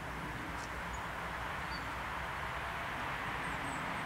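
Steady outdoor background noise with a few faint, short, high bird chirps over it.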